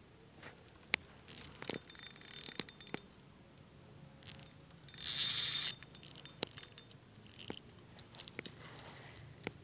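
Spinning fishing reel being handled: scattered light metallic clicks and rattles, with a short hiss about five seconds in.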